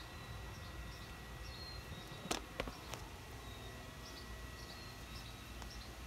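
Quiet outdoor background with faint high chirping, broken by three sharp clicks a little over two seconds in.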